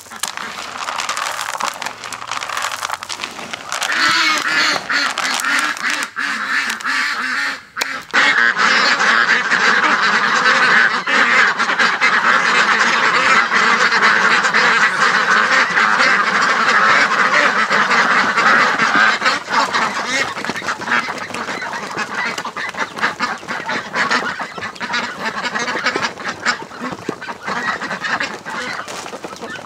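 A flock of white domestic ducks quacking all together without a break as they crowd round for feed, getting louder about four seconds in and loudest through the middle.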